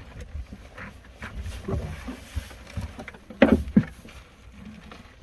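Low rumbling buffeting with scattered short knocks, the loudest two close together about three and a half seconds in.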